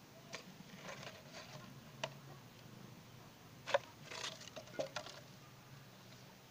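A plastic container knocked and scraped across dirt by a playing kitten: scattered light taps and scuffs at irregular times, the sharpest knock just under four seconds in, followed by a quick cluster of taps.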